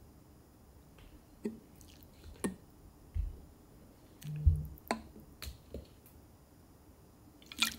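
Soft kitchen handling sounds: a few light clicks and taps of a spoon or utensil against a bowl, spaced about a second apart, with faint moist squishing as minced garlic goes in, and one duller knock near the middle.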